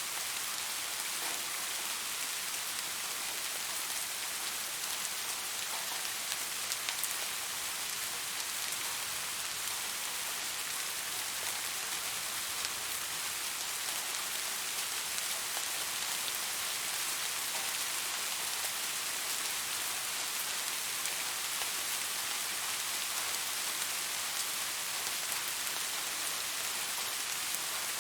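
Steady rain falling, an even hiss of many fine drops with a few faint individual drop ticks.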